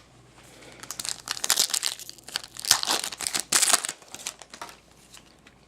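Foil wrapper of a Topps Chrome football card pack crinkling as it is torn open and pulled off the cards, a run of irregular crackly rustles lasting about four seconds.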